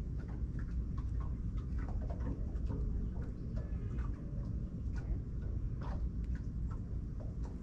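Outdoor riverbank ambience: a steady low rumble, like wind buffeting the microphone, with many faint scattered ticks and clicks.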